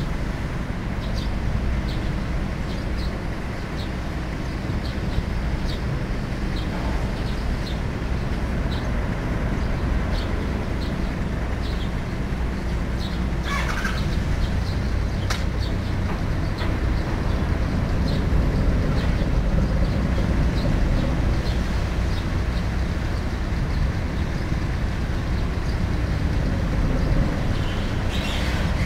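Cruise ferry Ishitegawa's engines and propellers running astern as it comes alongside, a steady low rumble with churning water. Short high bird chirps repeat throughout, and there are two brief knocks about halfway.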